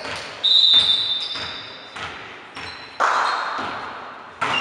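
A volleyball being struck several times during a rally, sharp hits ringing out in a large hall, the loudest about half a second in, about three seconds in and near the end.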